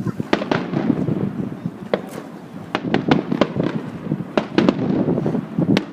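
Display fireworks going off: about a dozen sharp cracks and bangs in an irregular series, over a continuous low rumble.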